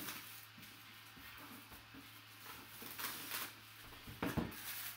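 Faint rustling and sliding of paper and cardboard as a trading-card box and its insert sheet are handled, with a soft knock a little past four seconds in, over a faint steady hum.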